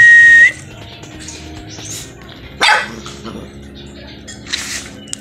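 A dog gives a short bark a little under three seconds in, over soft background music. A loud, steady, high whistle-like tone cuts off about half a second in.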